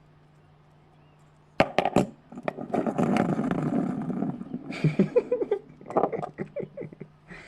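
Small hard parts being handled and worked: two sharp clicks, then a few seconds of scraping and rattling, then a run of quicker clicks near the end.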